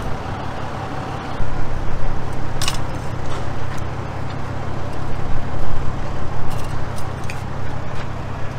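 Gusting low rumble of wind buffeting the microphone, with a few light clicks, one about three seconds in and several near the end.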